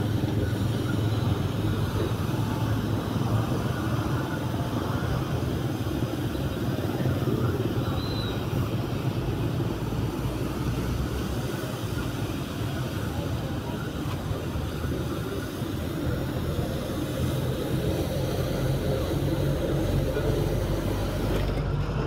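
Metro single-disc rotary scrubbing machine running steadily, its soft brush spinning over a foam-soaked carpet with a constant low motor hum.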